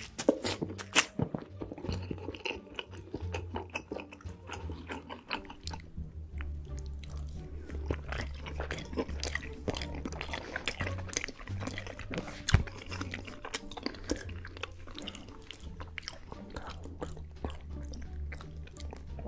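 Close-miked eating: food bitten and chewed with crunchy, wet clicks and crackles, as pizza and sauce-covered pasta are eaten. A background music track with a steady bass line plays underneath.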